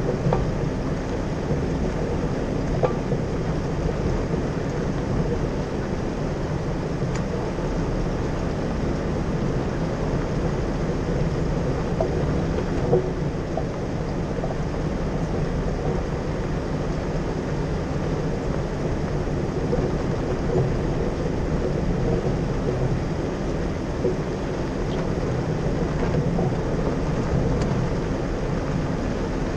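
Jeep driving a rough dirt and gravel track: the engine runs steadily under the rumble of tyres on the stony surface, with a few short knocks from bumps, the loudest about 13 seconds in.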